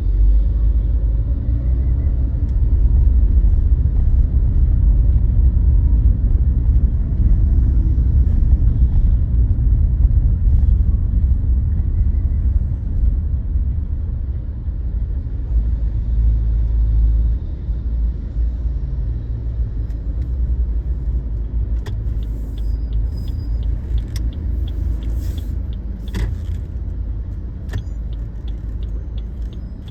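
Car driving, a steady low road-and-engine rumble heard from inside the cabin. It eases off a little past halfway. A run of faint ticks and a few clicks come in about two-thirds of the way through.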